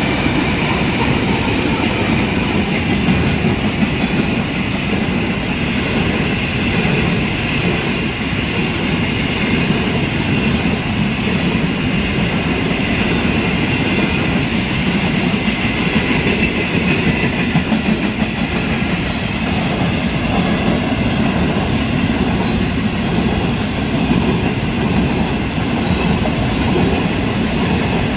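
Grain train led by a GrainCorp 48 class diesel locomotive passing close by, its long rake of hopper wagons rolling past with a steady sound of wheels on rails.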